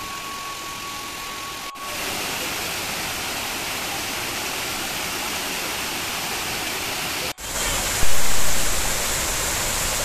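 Water of a small rocky waterfall cascading and splashing: a steady rushing noise that breaks off for an instant twice and grows louder about eight seconds in.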